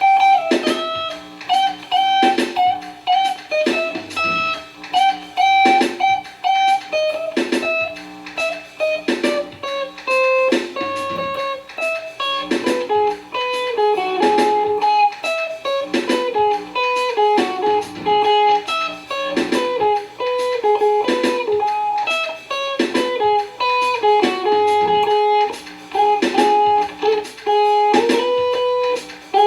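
Jazz-style instrumental playing on a plucked string instrument: a melodic line of single notes and chords in an even tempo.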